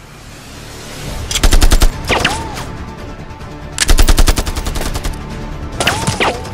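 Automatic rifle gunfire in three rapid bursts, each about half a second long, with a whining ricochet after the first and last bursts as bullets strike a wall.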